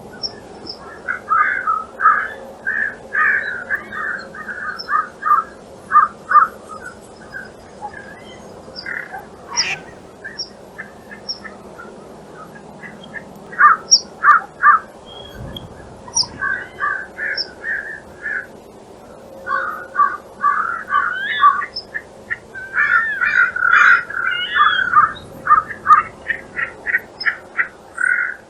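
Wild birds calling, many short notes repeated in quick runs, with a lull in the middle and the busiest calling near the end. There is one sharp click about ten seconds in and a low thump a few seconds later.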